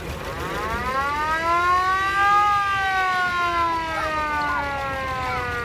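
Siren of an antique fire engine winding up in pitch for about two and a half seconds, then slowly winding down.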